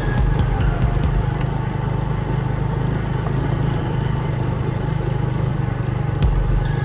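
Motorcycle engine running steadily at low speed over a rough dirt road, with a few rattling knocks from the bumps near the start and near the end.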